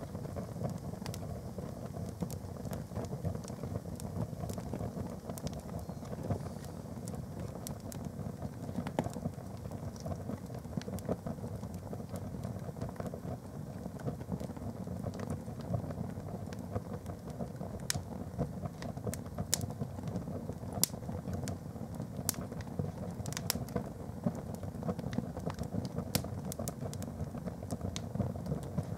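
A canvas plimsoll burning in open flames: a steady low rush of fire with scattered sharp crackles and pops, which come more often in the second half.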